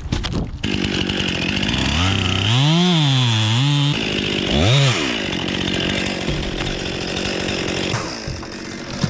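Chainsaw running and cutting through a section of tree trunk, its pitch rising and falling as it works through the wood, then easing off near the end.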